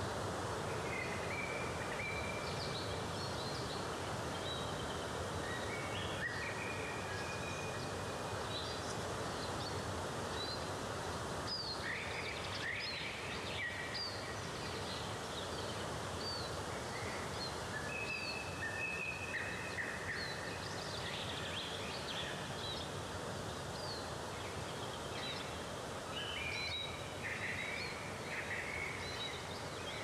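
Steady rush of a waterfall, with birds chirping and singing over it in short calls and whistled notes.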